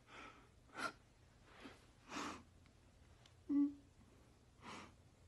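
A man breathing hard and gasping in short, separate breaths, worn out after a set of push-ups. A brief voiced moan about three and a half seconds in is the loudest sound.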